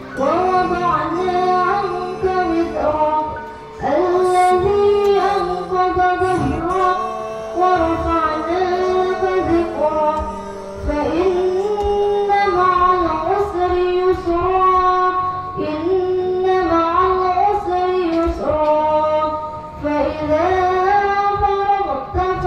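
A young woman's voice chanting Quran recitation in a melodic style, with long held notes and ornamented turns, in long phrases broken by short pauses.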